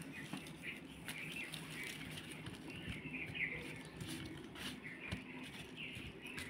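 Small birds chirping repeatedly, with soft pats and clicks of raw potato slices being tossed and turned over by hand on a banana leaf.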